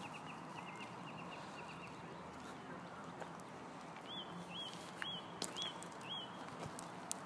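Small birds chirping: a quick run of short high chirps in the first couple of seconds, then five high rising-and-falling calls about two a second. Over a steady outdoor background, with a few light clicks.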